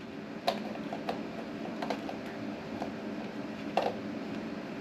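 A phone in its Quad Lock case being pushed and twisted against a Quad Lock motorcycle handlebar mount while it is worked into position: a scatter of light plastic clicks and taps, the loudest about half a second in and again near four seconds.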